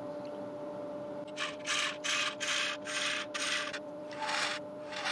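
Wood lathe running with a steady hum while a scraper takes short, light passes across the inside of a spinning yew bowl, a run of about seven hissing strokes starting a second or so in.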